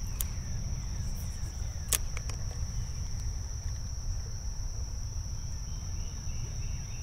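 Insects droning in one steady high tone over a low rumble, with a few sharp clicks, the loudest about two seconds in.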